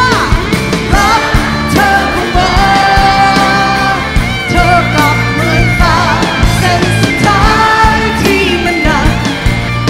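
Female lead singer singing a Thai rock song live with a rock band, holding long wavering notes over the band.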